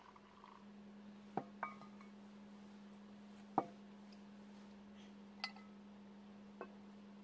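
Light metal clinks of camping kettles and cookware being handled and set down on a gas stove and table, about five in all, the loudest about midway. A short trickle of pouring water comes at the very start, over a steady low hum.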